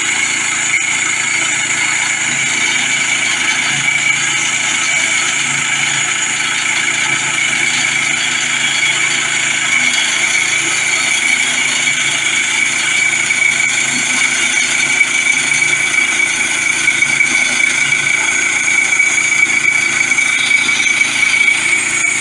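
Woodland Mills portable bandsaw mill running steadily, its gas engine under load as the band blade cuts through a small log.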